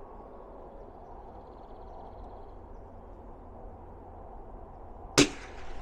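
A single .22 LR target rifle shot firing one round of Eley Match ammunition: one sharp, sudden crack near the end, over a faint, steady outdoor background.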